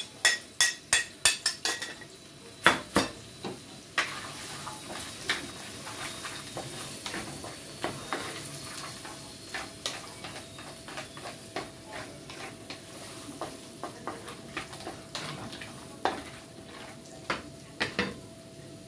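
A metal spoon clinks rapidly against a plate for the first second or two as diced vegetables are scraped into a wok. Then the vegetables sizzle steadily in the wok while a wooden spatula stirs them, with scattered scrapes and knocks on the pan, a few louder knocks near the end.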